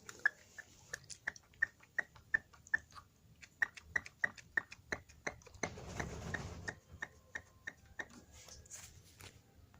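Fuel primer bulb on a four-stroke brush-cutter carburettor being squeezed over and over, a soft click about three times a second, drawing petrol in to purge the air from the bulb. A brief hissing rush comes about six seconds in.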